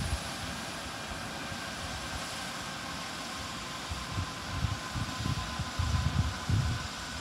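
Airbus EC135 twin-turbine helicopter running on the ground after landing: a steady turbine whine and hiss. Irregular low rumbles from wind on the microphone come and go, mostly in the second half.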